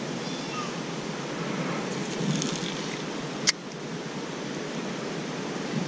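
Steady rushing outdoor noise, with a single sharp click about three and a half seconds in.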